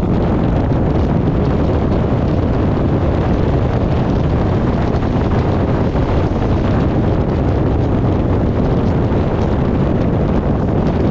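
Wind buffeting the microphone: a loud, steady rushing rumble, heaviest in the low end, with no let-up.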